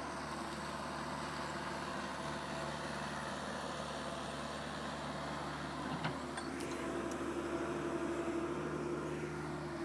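Small excavator's engine running steadily, with a single sharp knock about six seconds in and the engine sound growing a little louder from about seven seconds.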